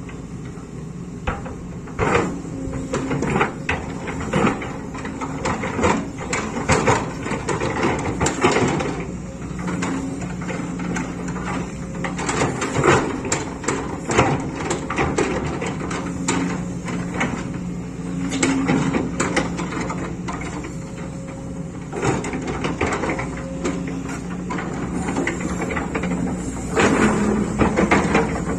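Kato excavator's diesel engine running steadily while the machine works, with frequent knocks and clatter from the digging gear coming and going throughout, loudest near the end.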